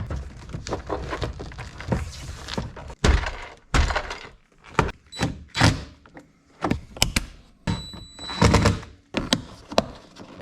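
A series of irregular knocks, thunks and clicks, about a dozen in all, from hands working on a car door and its interior door panel.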